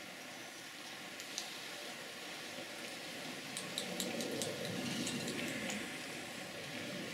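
Hedgehog chewing soft fruit: wet smacking clicks, a single one early and a quick run of them about halfway through, over a steady background hiss.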